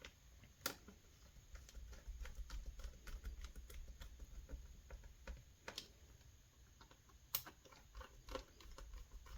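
Faint, scattered small clicks and ticks of a screwdriver tightening screws into a laptop's underside and of the laptop being handled, with a few sharper clicks here and there.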